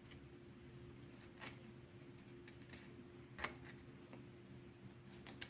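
Scattered light clicks and taps of a small titanium saw-blade holder being handled, a few at a time, over a faint steady hum.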